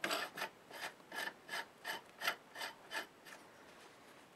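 Drawbar nut being spun by hand on its thread at the end of a lathe spindle: a run of faint metallic scrapes, about three a second, that stops a little after three seconds in.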